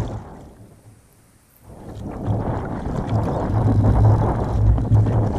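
Wind buffeting the microphone of a kayak-mounted camera: a gusty low rumble with water noise. It dies almost away about a second in, then comes back and swells in gusts.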